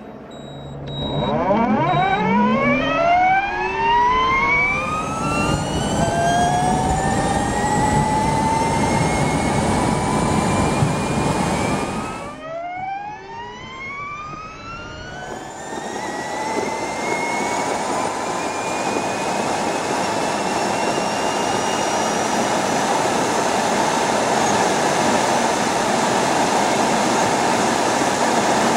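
Electric racing superbike pulling away from a standstill: its electric motor whine rises steeply in pitch and levels off into a steady high whine at speed, over a rush of wind and road noise. About twelve seconds in the sound cuts, and a second launch follows, its whine again climbing and then holding steady.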